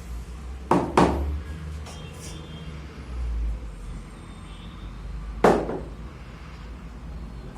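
Sharp knocks of hard objects: two in quick succession near the start and a single one about five and a half seconds in, over a low steady hum.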